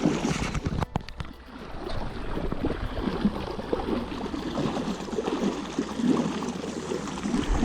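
Water splashing and lapping around a small fishing boat, an uneven watery noise with a few sharp clicks about a second in.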